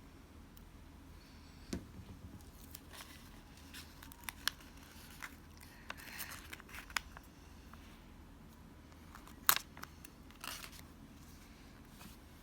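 Paper and stationery being handled on a desk while a planner page is laid out: scattered light clicks and taps with short rustles and scrapes. The sharpest click comes about two thirds of the way in.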